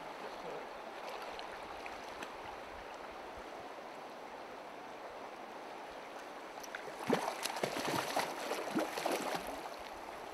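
Shallow river flowing over a stony bed, a steady rush of water. Between about seven and nine seconds in comes a short cluster of splashes and knocks.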